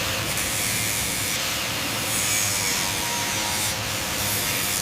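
A steady, even hiss with a low hum underneath.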